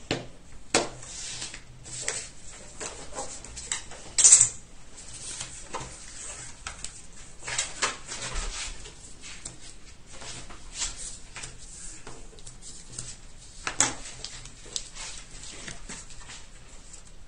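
Paper and craft tools being handled on a table: irregular light clicks, taps and rustles of cardstock, with one louder rustle about four seconds in and a sharp click near the end.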